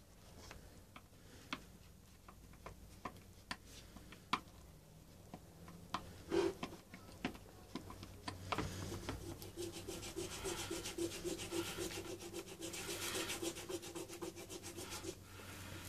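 Heated tool rubbing melted cable-tie plastic into a crack in a plastic scooter panel: scattered light taps and clicks at first, then, about eight seconds in, a fast, continuous scraping rub that stops just before the end.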